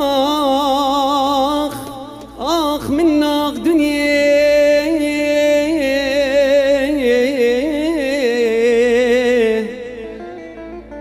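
A man singing an Arabic mawwal into a microphone: a free, unmetered vocal line with swooping ornaments early on, then long wavering held notes that sink in pitch. The voice stops about a second before the end.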